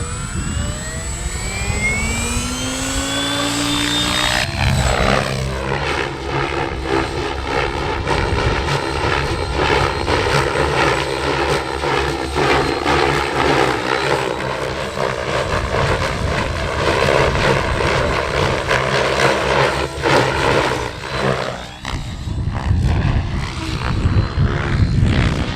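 Electric 700-size RC helicopter (Synergy E7se) spooling up: a rising whine from motor and rotor head over the first few seconds, then a steady whine as it flies on battery power. Near the end the whine falls away, leaving a rushing noise.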